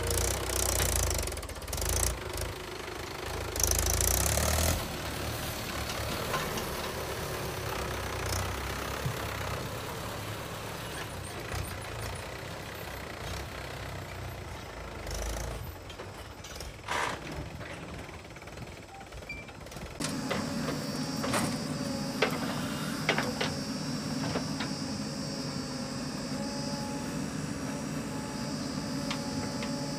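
Diesel engines of a JCB 3DX backhoe loader and a Mahindra tractor running while the backhoe digs earth and loads it into the tractor's trolley, with knocks and thuds from the bucket and soil. About two-thirds of the way in the sound switches to a steadier engine drone.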